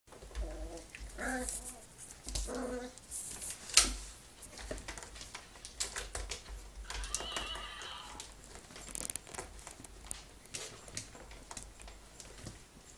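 Two schnauzer puppies playing at a plastic Fisher-Price toy barn: scattered plastic knocks and clicks, with one sharp knock a little under four seconds in. Short pitched animal-like calls come near the start, and a wavering high call comes around seven seconds in.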